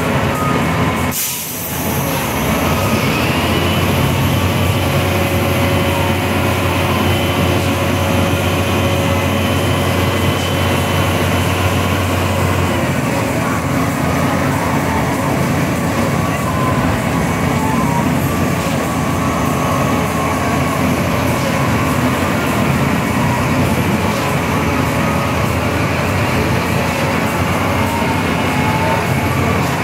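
Heavy diesel engines of a concrete mixer truck and a concrete pump truck running steadily under load while concrete is being discharged into the pump. A brief sharp break about a second in, and one steady low hum drops away about halfway through.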